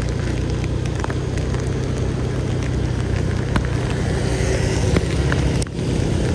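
Rainy street ambience: a steady hum of motor traffic under the hiss of rain, with scattered small ticks of raindrops striking close by.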